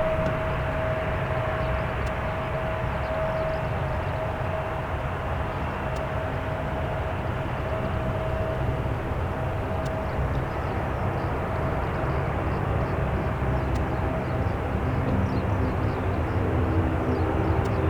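Boeing 737-800 jet engines running, a steady jet rumble with a whine that fades out about halfway through.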